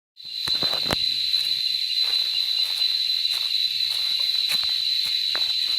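Steady, high-pitched insect chorus droning without a break in jungle forest, with a few light clicks in the first second.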